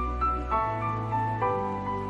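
Instrumental background music: a gentle melody of held notes over a bass line that changes pitch about halfway through.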